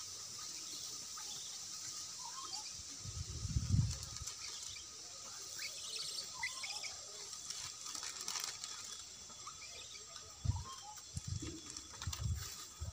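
Outdoor ambience: scattered bird chirps over a steady high hiss, with light rustling and crackling and a few low thumps, the loudest about four seconds in and several more near the end.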